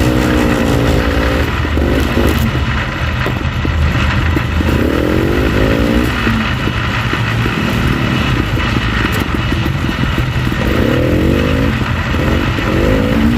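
Single-cylinder two-stroke engine of a 1965 Bolens Hus-Ski 444 snowmobile, a 252cc JLO Rockwell, running under a steady drone. Its pitch sweeps up and down several times as it is throttled.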